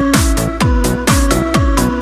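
Electronic dance music with a steady kick drum, about two beats a second, under held synth chords.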